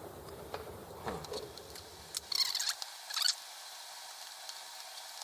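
Hands handling small parts on a model engine: a few light clicks, then two short scraping rustles. A low background hum cuts off about three seconds in.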